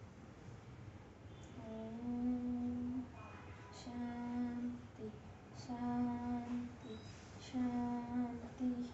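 A girl's voice chanting on one steady pitch, starting about two seconds in: about five long held syllables, each a second or so, with short breaks and hissing consonants between them.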